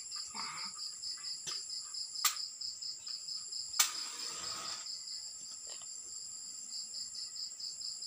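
Crickets chirping steadily in an even, pulsing rhythm. A match is struck: a couple of sharp scratches, then about four seconds in a louder strike followed by roughly a second of hiss as the match flares.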